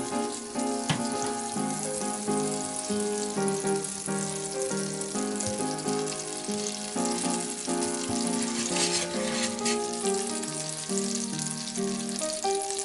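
Butter sizzling as it melts and bubbles in a stainless steel frying pan, pushed around with a wooden spoon. Background music plays throughout.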